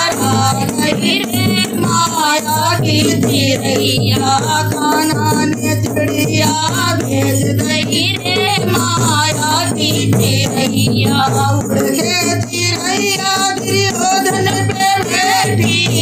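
A woman singing a Hindi devotional Krishna bhajan in a folk style, accompanied by a dholak drum and a rattling percussion bed.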